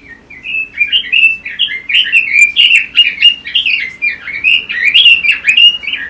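A Pekin robin (red-billed leiothrix) sings one long, rapid warbling phrase of clear, quickly rising and falling whistled notes. The phrase stops abruptly near the end.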